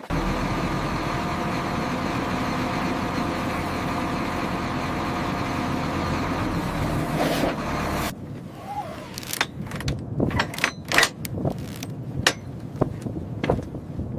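A machine engine or motor running steadily, cutting off abruptly about eight seconds in. A series of irregular knocks and clanks follows.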